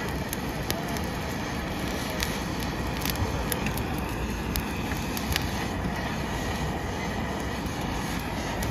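Handheld butane blowtorch and gas grill burners giving a steady rushing hiss as a whole squid is seared, with scattered sharp clicks and crackles.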